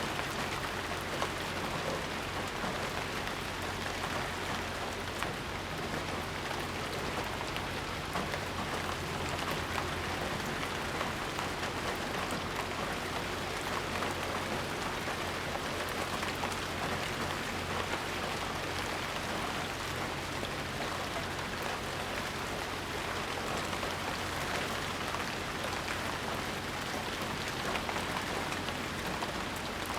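Steady rain falling, a dense even hiss of many small drop ticks, with no thunder.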